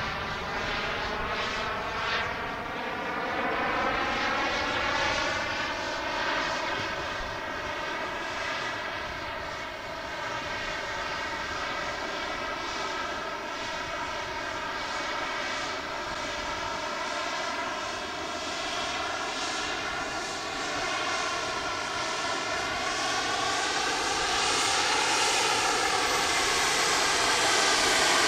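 Model jet turbine of a large thrust-vectored RC jet running steadily, a whine with a rich stack of tones over a rushing haze. Its pitch drifts slowly up and down, and it grows louder over the last few seconds.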